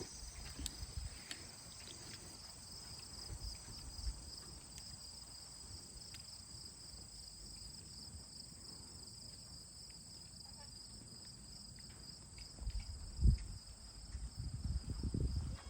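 A steady, high-pitched chorus of insects chirring. There is one low thump about thirteen seconds in and a run of low thumps and rumbles near the end.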